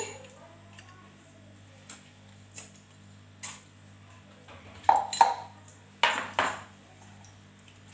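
A metal spoon clinking against a dish while salt is spooned out: a few light taps, then two pairs of louder, ringing clinks about five and six seconds in.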